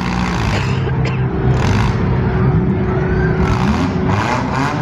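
Demolition derby car engines running and revving, several at once, with pitch rising and falling near the end.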